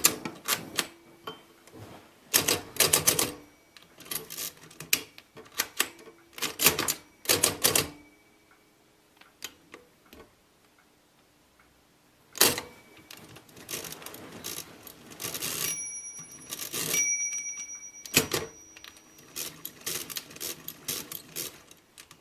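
Facit C1-13 hand-cranked mechanical calculator being worked through a division: the crank is turned in runs of quick mechanical clacks, repeatedly subtracting the divisor. The clacking stops for a few seconds in the middle, then resumes, with a short ringing tone partway through.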